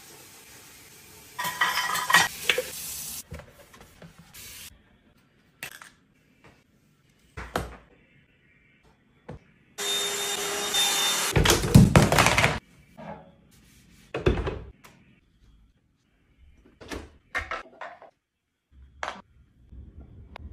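A string of separate household knocks and clunks, with dishes clattering as a dishwasher is being unloaded, and a loud rushing noise lasting about three seconds midway.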